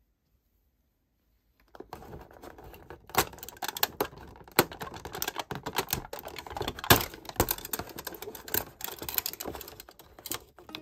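Fingers pushing in and tearing open a perforated cardboard door of a Fortnum & Mason tea advent calendar: a dense run of sharp crackles and clicks of card and packaging. It starts about two seconds in after silence.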